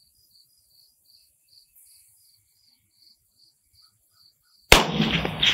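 Insects chirp faintly a few times a second. About four and a half seconds in comes a single loud shot from a suppressed Galil DMR rifle in 6.5 Creedmoor, its echoes trailing off with another sharp crack close behind.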